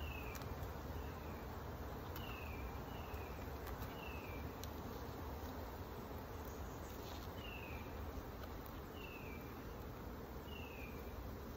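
Honeybees humming steadily over an open hive as its frames are worked. A short falling chirp repeats at intervals of about a second, with a few faint clicks.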